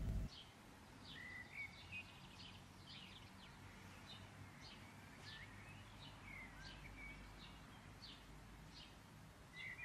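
Faint, repeated short bird chirps and twitters, a few each second, over a low steady background hiss.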